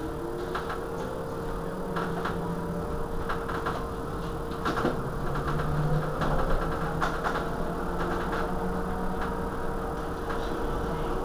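Irizar ie tram battery-electric bus standing at a stop with its onboard equipment running: a steady electric hum with one constant mid-pitched tone. Scattered short clicks and knocks sound over it.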